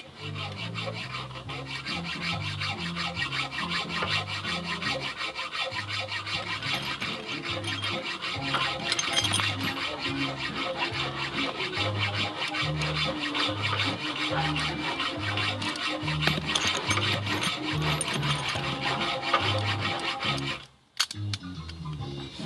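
Background music with a stepping bass line and busy, scratchy rhythm on top; it cuts out briefly near the end.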